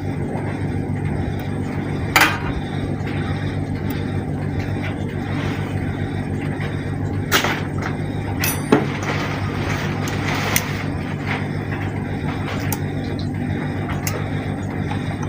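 A steady low mechanical hum, with a few sharp knocks scattered through it.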